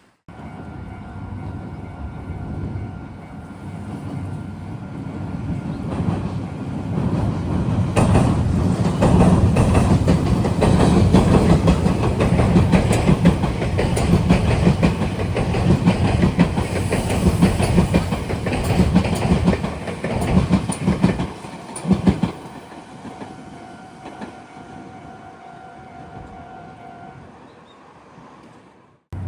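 Meitetsu electric train passing through a rail junction, its wheels clattering over the rail joints and turnouts. It builds up, is loudest through the middle and dies away about 22 seconds in. A steady level-crossing warning bell rings under it and is heard clearly before and after the train.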